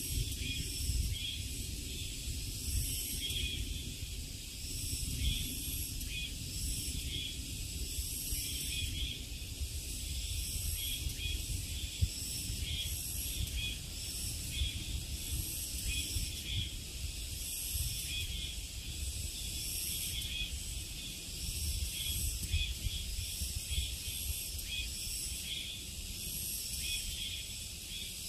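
A chorus of summer insects: steady high-pitched shrilling that pulses in waves, over a low rumble.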